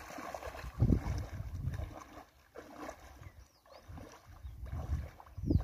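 Water sloshing and splashing as a fishing drag net is hauled through knee-deep pond water by people wading in it, in uneven surges.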